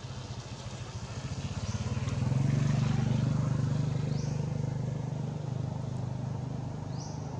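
A road vehicle's engine passing, a pulsing low hum that grows louder to a peak about two and a half seconds in and then slowly fades. Three short, high rising chirps are heard over it.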